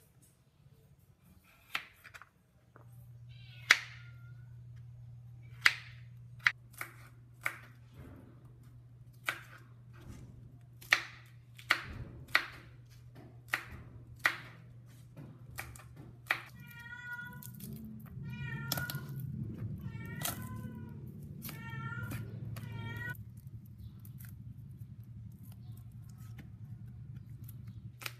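A kitchen knife cutting through kabocha squash and winged beans against a plastic cutting board, giving sharp, irregular knocks about once a second. A steady low hum runs underneath, and partway through there is a run of several short, wavering high calls.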